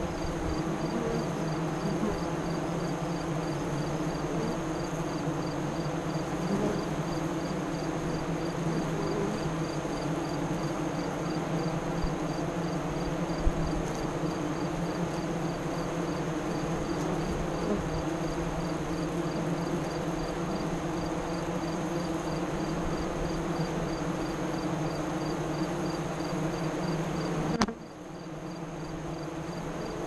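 Honey bees at a hive entrance buzzing: a steady, dense hum of many wingbeats close by. The hum drops off suddenly near the end and partly builds back.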